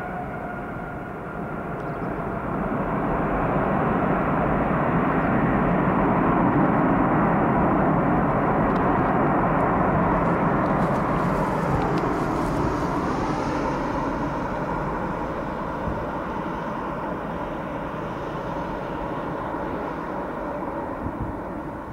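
Boeing 737-800's CFM56-7B jet engines during the landing rollout, a loud roar that swells a few seconds in as reverse thrust is applied, then slowly dies down as the jet slows and rolls away.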